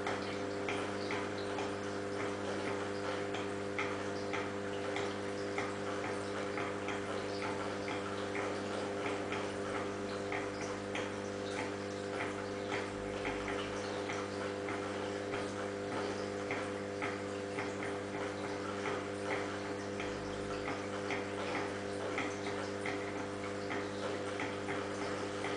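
Steady electrical hum from aquarium equipment such as a pump, with quick, irregular ticks over it, several a second.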